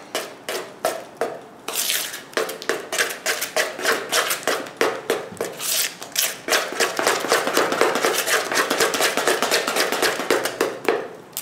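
Spoon beating thick cake batter by hand in a plastic mixing bowl: rapid, regular scraping strokes, several a second.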